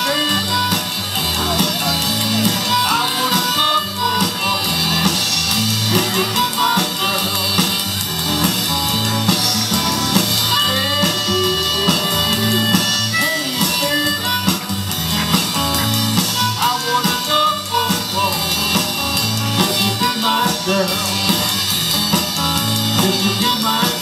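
Rock band music with singing, electric guitar and drums, playing steadily throughout.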